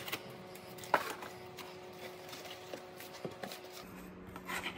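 Cardboard mailer being handled and pulled open: faint rustling and scraping of the cardboard, with a sharp click about a second in, a few small ticks, and a burst of louder rustling near the end.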